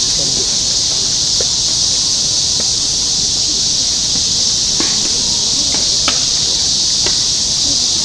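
Steady, high, hissing chorus of insects, with a few faint taps about five to seven seconds in.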